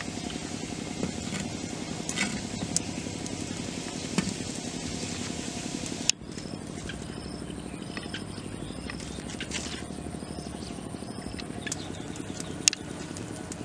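Small wood fire crackling under a clay cooking pot, with scattered sharp pops and a steady low drone behind it. After an abrupt change a few seconds in, short high chirps join in.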